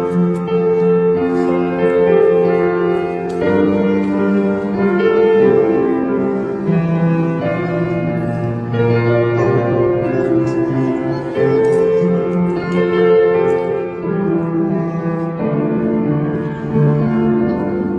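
Slow instrumental music, sustained notes changing every second or so.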